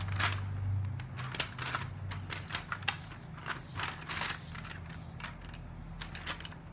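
Irregular clicks and clatter of small plastic markers being rummaged through while searching for one, over a low steady hum.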